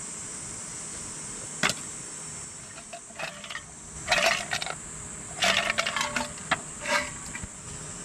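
Insects drone steadily in a high, even band. Over it come a single sharp click, then several short bursts of clattering knocks.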